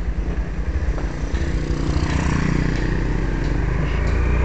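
Honda Verza 150's single-cylinder four-stroke engine running while riding, chugging at low revs and then pulling harder with rising pitch after about a second and a half. It runs on thick Mesran B diesel engine oil, which the owner credits with a smooth engine sound.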